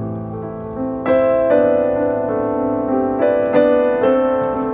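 Background piano music: slow, gentle chords struck every second or two, each left ringing as it fades.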